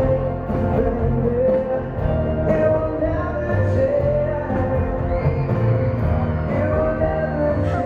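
Live band playing a pop ballad with male singers, sustained sung notes over guitars and drums.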